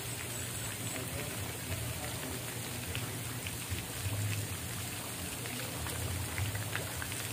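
Water pattering and splashing steadily in a swimming pool, with many small drips and splashes scattered through.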